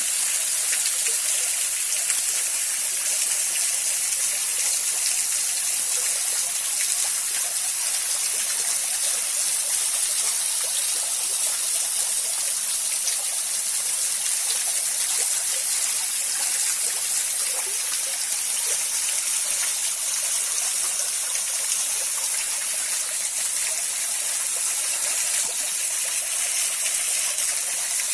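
Small waterfall splashing and the stream flowing below it, a steady rushing hiss.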